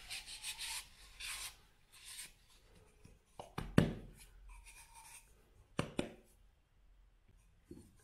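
Paper napkin rubbing over the parts of a manual coffee grinder as they are polished dry, with a few sharp clicks and knocks of the parts being handled; the loudest click comes about four seconds in.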